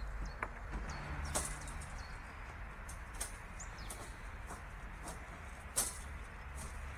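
Small birds chirping repeatedly over a steady low outdoor rumble, with a few sharp clicks, the loudest near the end.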